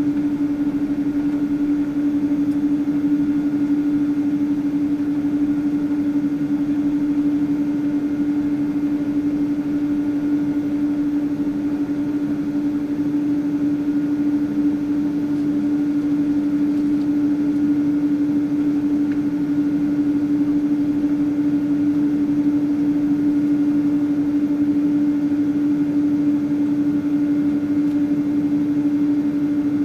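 Steady drone inside a Boeing 777-200 airliner's cabin while it is on the ground before takeoff, with one strong low hum held at a constant pitch over an even rushing noise.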